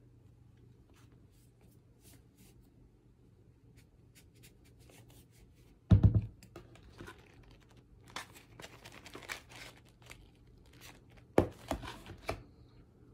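Hands handling plastic containers of cornstarch chunks: faint scattered ticks, then a loud knock about halfway through, a stretch of crinkling and crackling, and a cluster of sharp clicks and taps near the end.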